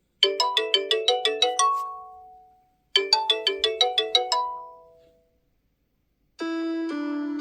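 OnePlus 11 ringtone: a quick run of about nine bright chime-like notes ending on a held note that rings out, played twice. Near the end a different ringtone with sustained tones begins.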